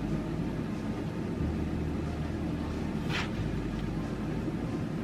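Low, steady background music with sustained bass notes that change about every two seconds. A short swish cuts through about three seconds in.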